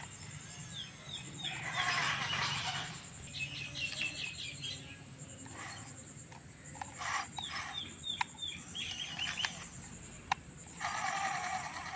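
Birds calling outdoors, chicken-like clucks among them: runs of short, quickly falling chirps about a second in and again in the second half, with a few sharp clicks.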